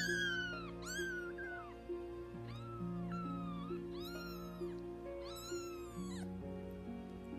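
Very young kittens mewing: repeated high, arched mews about once a second that stop about six seconds in, over soft background music with long held notes.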